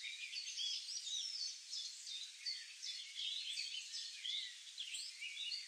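A chorus of wild birds chirping and calling, with many short, high chirps and quick gliding whistles overlapping without a break.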